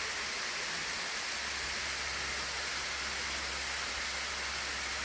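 Small waterfall rushing steadily, an even, unbroken sound of falling water.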